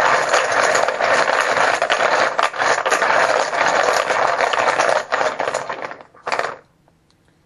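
Poker chips clattering and clicking against each other as they are shaken and mixed in a container. The dense rattling runs about six seconds, stops, then comes back in one short final shake.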